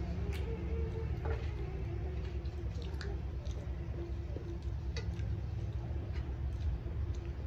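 Eating by hand: fingers mashing and mixing rice with curry on steel plates, with wet chewing and scattered small clicks, over a steady low hum.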